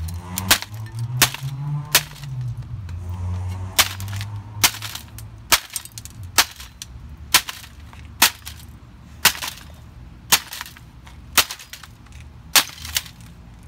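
A hammer striking the stripped chassis and circuit board of a Toshiba laptop on concrete, a dozen or so sharp cracks at about one a second.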